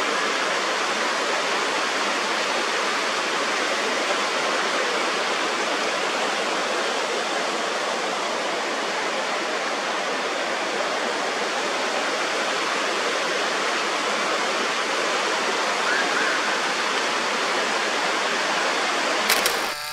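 Mountain stream rushing over rocks: a steady, even rush of running water that cuts off abruptly near the end.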